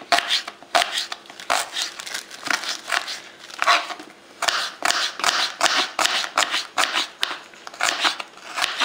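Kitchen knife slicing a small onion on a plastic cutting board: a steady, irregular run of quick crisp cuts, each ending in a tap of the blade on the board.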